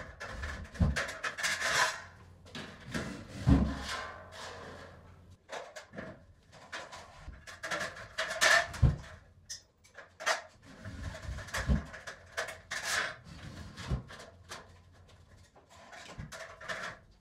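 Metal drywall studs and tracks being handled and slotted into place: irregular metallic scraping and rubbing with clicks, and a few dull knocks.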